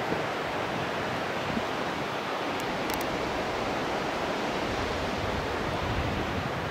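River water rushing steadily below the bridge, an even hiss of flowing water that does not change.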